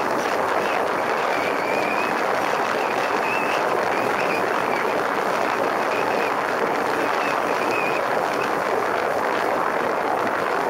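Wind rushing over the camera microphone of a motorcycle riding at speed: a steady, even rush of noise that covers the engine, with a faint high wavering whistle that comes and goes.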